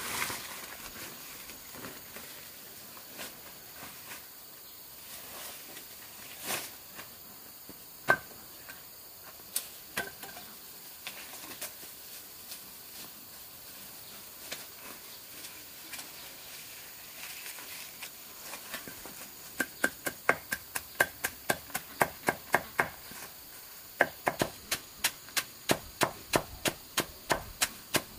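A few scattered sharp knocks, then two runs of rapid, regular knocks at about three a second in the second half, with a short break between them. A steady hiss of forest insects runs underneath.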